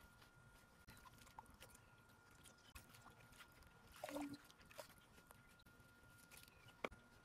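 Near silence: faint clicks and light splashes of leafy greens being washed by hand in a steel bowl of water. A faint steady tone runs underneath, and one short, louder sound comes about four seconds in.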